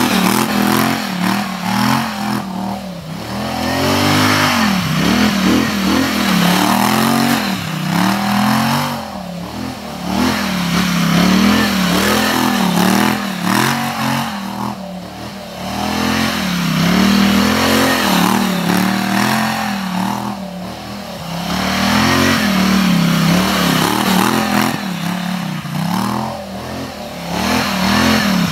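2024 Polaris Sportsman XP 1000 ATV's twin-cylinder engine under way, revving up and easing off again and again, with the throttle backing off more deeply about every six seconds. A steady rushing noise runs underneath.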